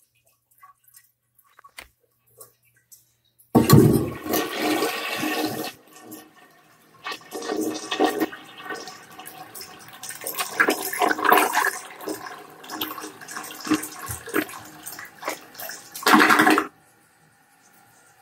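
1984 Mansfield Mohican toilet flushing. After a few faint clicks, water rushes in suddenly about three and a half seconds in and swirls down the bowl for about twelve seconds. It ends with a last loud rush that cuts off suddenly near the end.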